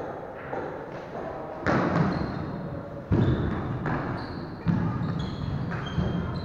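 Badminton doubles rally on a wooden court: players' feet thudding on the floorboards about four times, short shoe squeaks and racket strikes on the shuttlecock, echoing in a large hall.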